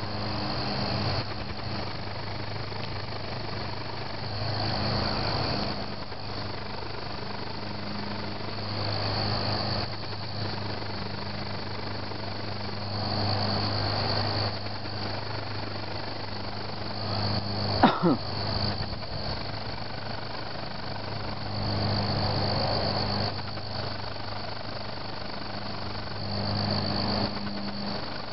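Crickets chirping steadily in the background over a steady low mechanical hum that swells every four seconds or so. About two-thirds of the way in, a short sound sweeps quickly down in pitch, the loudest moment.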